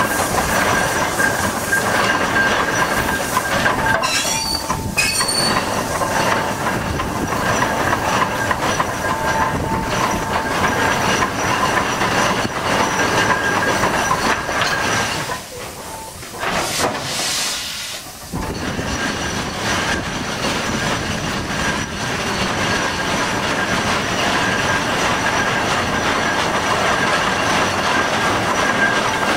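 Ruston steam excavator at work: its steam engine and winch gearing run with steady mechanical noise and high, steady whining tones. It eases off for a few seconds about halfway through, then picks up again.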